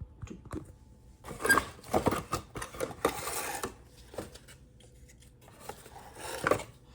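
Small plastic parts of a car side mirror being handled and fitted together: scattered clicks, taps and rustling, with a couple of quiet pauses.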